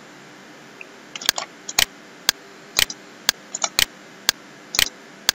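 Sharp computer-mouse clicks, evenly spaced about twice a second from about a second in, with short scratchy rustles between them.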